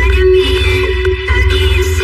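Background electronic music with a steady, pulsing bass.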